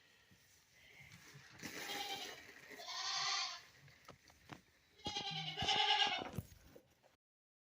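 Goats bleating, about three wavering calls spaced over a few seconds.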